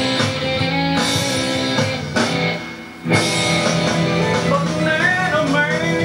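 Guitar-led country-style music. It dips briefly about halfway through, then comes back at full level.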